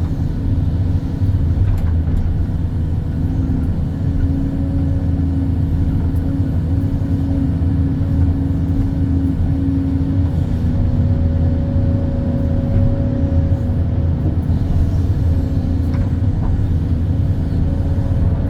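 Hydraulic excavator's diesel engine running steadily under digging load, with a hydraulic whine that shifts pitch a few times as the boom and bucket work.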